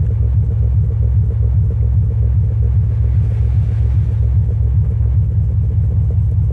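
Subwoofer driven by a SOCL 504 power amplifier through an NE5532 subwoofer filter, playing loud, deep bass from the phone's audio with a fast pulsing beat and almost nothing above the low end.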